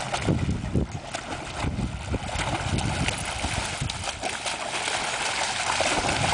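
Dogs splashing and sloshing as they wade and run through shallow lake water, over a steady low rumbling noise.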